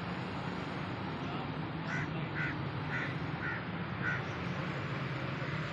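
Steady rush of floodwater, with a bird giving five short calls about half a second apart near the middle.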